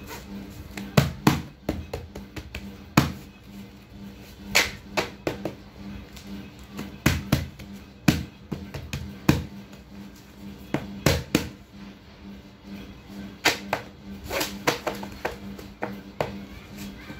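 Hands pressing, creasing and tapping a stack of paper envelopes against a tabletop: irregular sharp taps and slaps, over a steady low hum.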